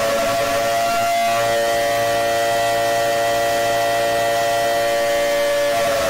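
Civil defense warning siren holding a steady wail, one loud sustained tone rich in overtones.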